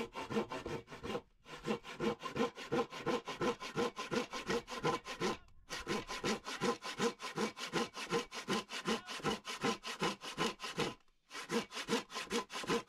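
Hand saw cutting through a wooden log in quick, regular back-and-forth strokes, with three short pauses.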